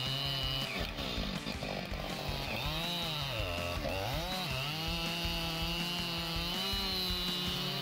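Husqvarna 592 XP two-stroke chainsaw running at high revs while cutting into a large tree trunk. The engine pitch dips twice around the middle as the chain loads up in the cut, then climbs back and holds steady.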